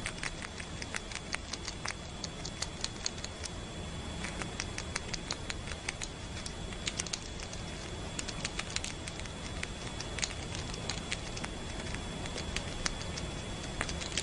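A squirrel nibbling a piece of fruit held in its paws: quick, irregular little crunching clicks of its chewing, over a steady hiss.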